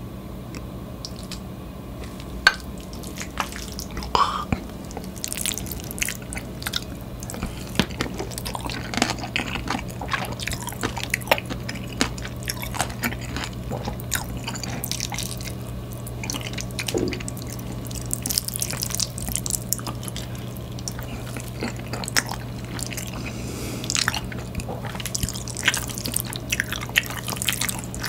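Close-miked eating sounds: a spoon stirring and scooping sticky rice mixed with snow crab innards and sesame oil in a bowl, and wet, squelching chewing with frequent sharp clicks and smacks. A steady low hum runs underneath.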